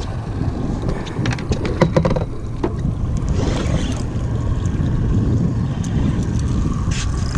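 Steady low rumble and wind noise aboard a small fishing boat, with a cluster of sharp clicks and taps from handling the spinning rod and reel about one to two seconds in.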